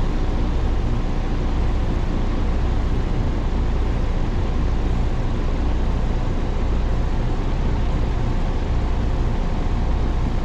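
1994 Rheem Imperial Classic XII air conditioner running steadily: a low, even hum under a constant rush of air from its fan.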